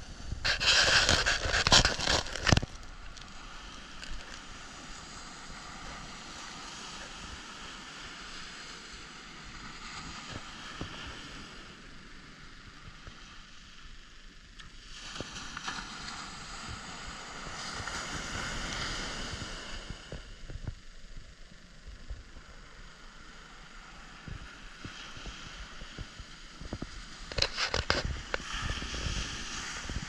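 Small surf breaking and washing up a sandy beach, the wash swelling and fading in slow surges. A loud burst of rustling handling noise on the camera comes about a second in, and a shorter one near the end.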